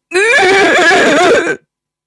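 A horse whinny: one wavering, pitched call about a second and a half long that stops abruptly.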